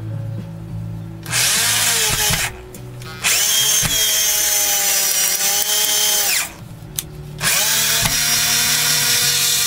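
Makita 6093D 9.6 V cordless drill driving a 2-inch screw into a pine block, in three trigger pulls. The motor spins up to a steady whine each time: a short run, a longer run of about three seconds, then a third that starts about seven and a half seconds in and is still going at the end. A low steady hum can be heard in the gaps between runs.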